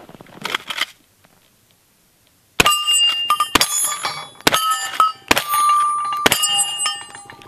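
Five black-powder .45 Colt rounds fired from a lever-action rifle, about a second apart, each shot followed by the bell-like ringing of a steel target being hit.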